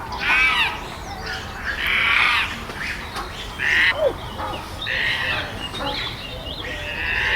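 Chimpanzees screaming: a series of loud, high-pitched calls, one every second or two.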